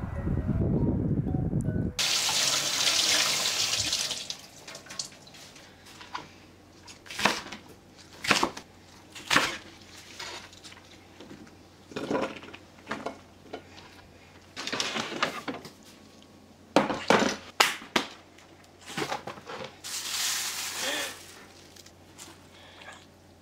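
Kitchen food-prep sounds: a short rush of running tap water about two seconds in, then a string of short splashes and clicks while green onions are rinsed and handled in a dish. The earlier sound breaks off abruptly as the water starts.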